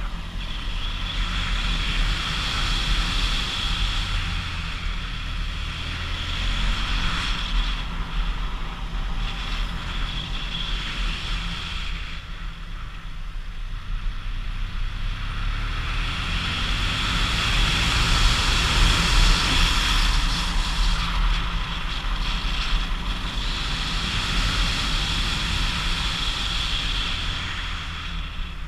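Vehicle engine running steadily under load on a climbing road, with wind rushing over the action-camera microphone; the wind hiss eases off for a few seconds near the middle and swells again after.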